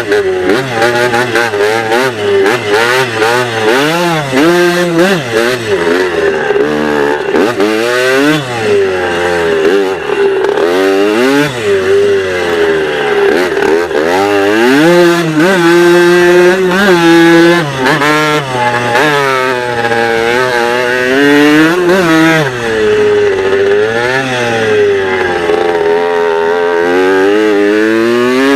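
Dirt bike engine being ridden hard, its pitch climbing and falling again and again as the throttle opens and closes and the rider shifts gears.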